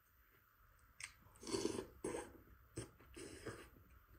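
Close-up chewing of tender stewed goat meat and vegetables, in several short bouts starting about a second in, with a sharp click a little before the three-second mark.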